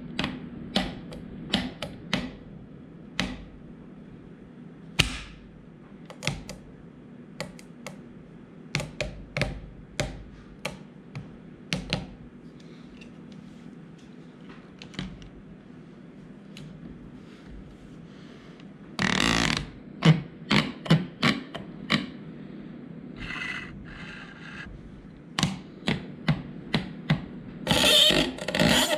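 Plastic camera clamps being handled and shifted on a surface: scattered clicks and knocks, with a brief scraping rush about two-thirds of the way through and a quick run of clicks near the end.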